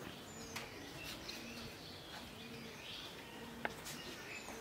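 Birds chirping and calling in the background, with a few sharp ticks. The loudest tick comes about three and a half seconds in.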